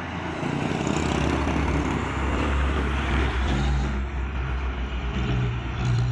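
Heavy truck's diesel engine running as it passes close by, with tyre and road noise; the sound gets louder about half a second in, and the engine note strengthens near the end.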